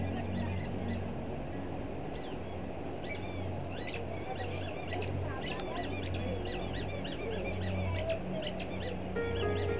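Many short, high, squeaky chirps in quick succession, bird-like, over a low pulsing drone of steady tones.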